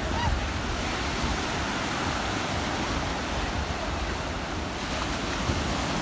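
Small sea waves breaking and washing up on a sandy shore: a steady, even surf.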